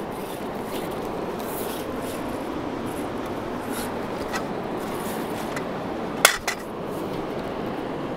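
Steady rush of a fast-flowing river, with a few faint ticks and one sharp knock a little over six seconds in.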